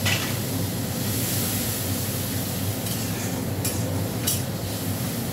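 Onion-tomato spice masala, with water just added, sizzling in a steel kadai as it is sautéed, over a steady low hum. A metal spatula scrapes the pan three or four times about three to four and a half seconds in.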